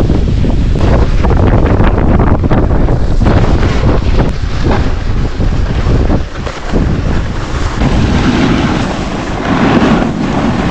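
Wind buffeting a moving camera's microphone on a ski run, mixed with the hiss and scrape of a snowboard sliding over packed snow. The noise drops for a moment about halfway through, then comes back.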